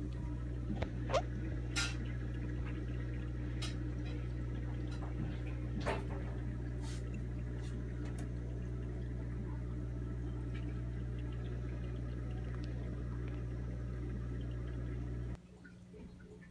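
Steady low hum of aquarium equipment, with a few sharp clicks in the first six seconds. The hum stops abruptly near the end.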